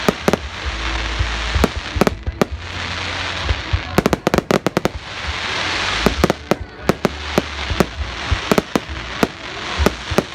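Fireworks display: many sharp bangs of bursting shells at irregular intervals, some in quick clusters, with stretches of dense crackling hiss and low rumble between them.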